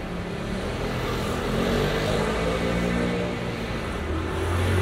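Road traffic: a motor vehicle's engine running as it passes on the street, its pitch shifting slightly and growing louder near the end, over steady traffic noise.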